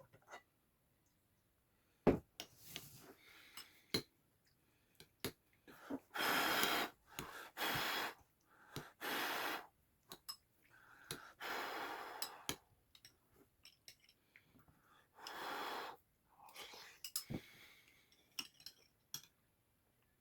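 Eating hot potato sujebi soup, sped up to double speed: about five breathy rushes of air at the mouth, with scattered sharp clicks of a spoon against the bowl.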